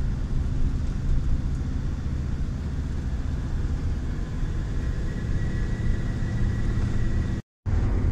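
Inside the cab of a moving camping-car: the engine and the tyres on the road make a steady low drone and rumble at cruising speed. The sound drops out completely for a moment near the end.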